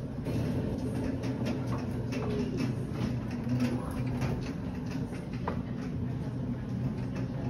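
Hospital bed being wheeled along a corridor: a steady rolling rumble with many light rattles and clicks from the wheels and frame.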